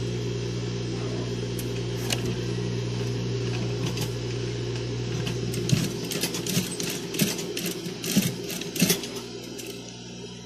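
Sewing machine stitching a cloth lining onto a crocheted face mask. A steady motor hum runs until about six seconds in, then gives way to a cluster of clicks and knocks over the next few seconds, and the sound is quieter near the end.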